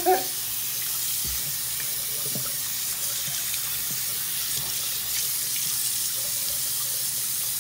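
Bathroom sink faucet running steadily, its stream splashing over a wet puppy and into the basin as it is rinsed by hand.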